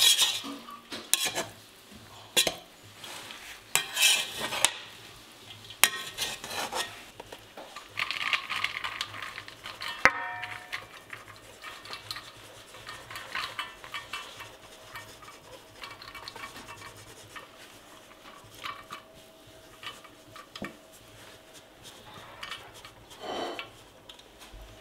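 Metal utensils knocking, scraping and clinking against a cooking pot and dishes, busiest in the first ten seconds with one sharp clank about ten seconds in. After that the clatter thins to occasional taps over a faint steady tone.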